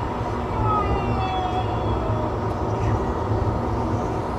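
Steady road and engine noise inside a car's cabin at expressway speed, mostly a low drone, with a few faint, short whistling tones about half a second to two seconds in.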